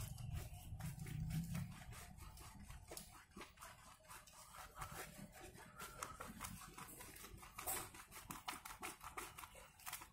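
Hands scrubbing shampoo lather into a wet long-haired cat's fur: many quick, irregular wet rubbing and squishing strokes, with a low rumble in the first couple of seconds.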